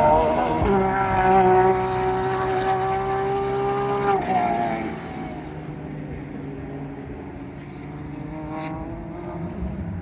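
GT race car engine at high revs, holding a steady high note for about four seconds after a brief dip in pitch near the start. Then the note falls and the sound drops to a quieter, lower engine drone that slowly rises again near the end.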